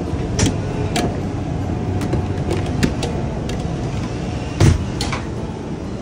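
Steady low mechanical rumble of the food truck's kitchen equipment, with scattered light clicks and knocks of utensils and topping containers at a stainless pizza prep table. One louder knock comes about four and a half seconds in.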